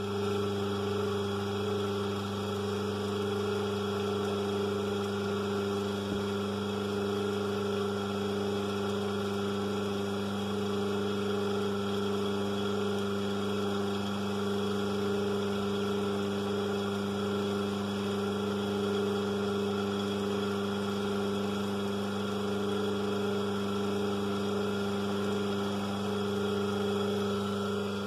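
Split-phase induction motor running steadily at full speed, a constant electrical hum. Its start winding is already switched out by the centrifugal switch, so it is running on the main winding alone.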